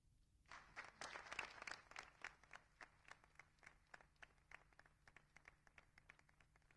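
Audience applauding, starting suddenly about half a second in, densest over the first couple of seconds, then thinning to scattered claps.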